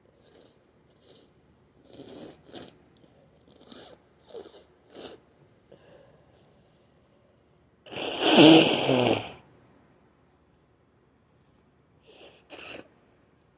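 A stuffy, congested nose sniffling wet: a run of short sniffs, then one loud, forceful blast of air through the nose lasting over a second about eight seconds in, and two more quick sniffs near the end. The congestion is typical of a beginning cold.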